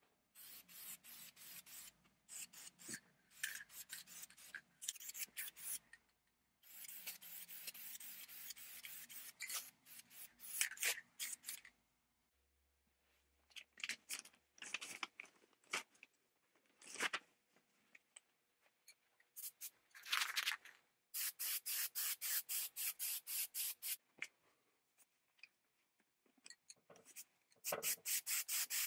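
Quick rubbing strokes by hand on a surface, about four a second in places, coming in runs with short pauses between them.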